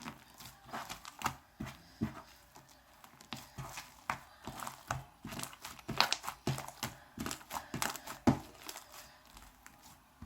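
Slime being kneaded and mixed by hand, with irregular wet squishes and small clicking pops. The batch is runny, with shaving foam, lotion and water freshly worked in.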